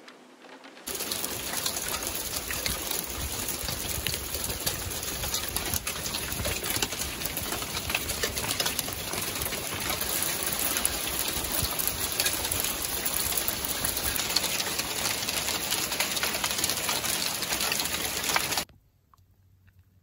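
Hail falling hard, a dense clatter of hailstones striking car bodies, roofs and the ground. It starts about a second in and cuts off suddenly near the end.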